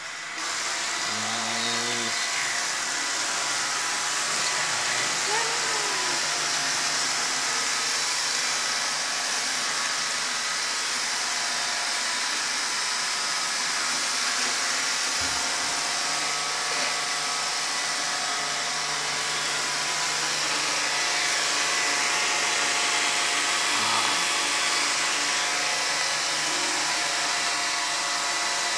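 Robot vacuum cleaner running: a steady whirring hiss with a few steady motor tones.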